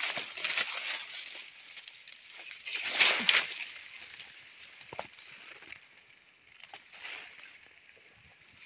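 Leaves and branches rustling and swishing as dense undergrowth is pushed aside and stems are pulled by hand, loudest about three seconds in, with a single sharp click about five seconds in.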